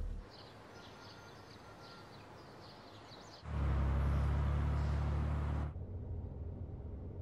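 Birds chirp faintly over quiet street ambience. About three and a half seconds in, a car's engine rumbles loudly for about two seconds, then drops to a steady engine hum heard inside the cabin.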